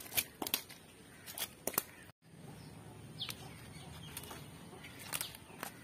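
Several sharp slaps and splashes in shallow muddy water in the first two seconds, then a faint background with a bird chirping a few times.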